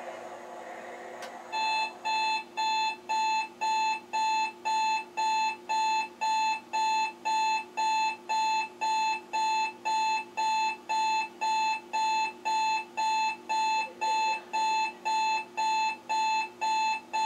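Rocket alarm clock's alarm going off: a single-pitch electronic beep repeating steadily, about three beeps a second. It starts about a second and a half in, just after a faint click.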